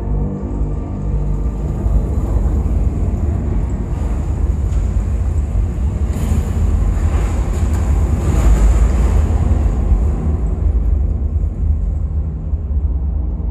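Deep rumbling sound design from an immersive cave audio installation. A rushing swell builds about halfway through, peaks, then eases off near the end.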